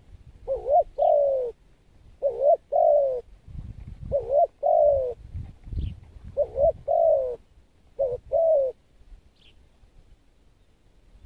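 Spotted dove cooing: five phrases about two seconds apart, each a short rising-and-falling note followed by a longer falling coo. A small bird chirps faintly three times in between.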